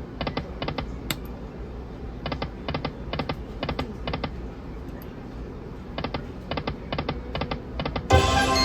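Slot machine game sounds: runs of quick electronic ticks, about six or seven a second, in several groups separated by pauses. About eight seconds in, a loud, bright jingle of chime tones begins.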